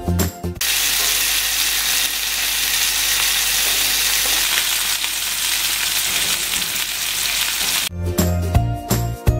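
Chicken thighs and drumsticks frying skin-side down in a hot pan: a steady sizzle. Background music plays for a moment at the start and comes back near the end.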